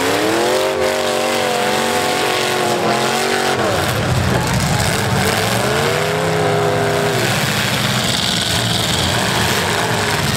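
Demolition derby truck engines revving hard: one climbs to high revs and holds there for about three seconds before dropping off, then winds up and holds again for a couple of seconds, over the rough din of the other engines running.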